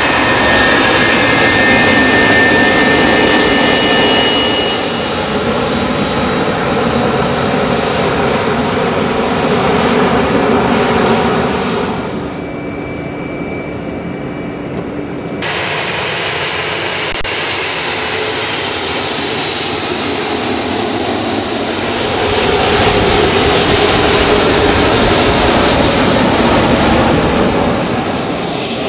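Jet airliner engines running as the aircraft taxi on the ground, with a high engine whine over the rumble in the first few seconds. The sound changes abruptly several times, with a quieter stretch around the middle.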